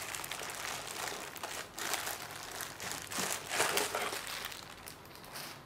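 Packaging being handled and unwrapped: irregular crinkling and rustling as a smart lock's front unit is taken out of its box.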